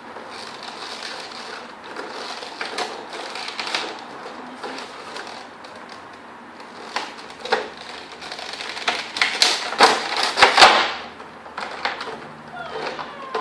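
Packaging being handled and opened by hand: irregular rustling, crinkling and clicking, loudest in a dense run of crackles about nine to eleven seconds in.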